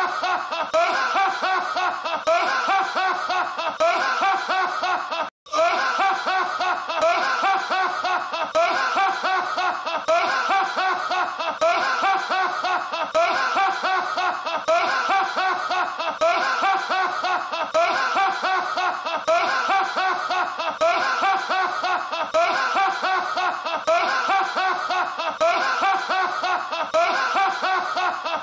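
A man's loud, hearty belly laugh from a film soundtrack, played as a short loop that repeats over and over without a break in rhythm. There is a brief cut to silence about five seconds in.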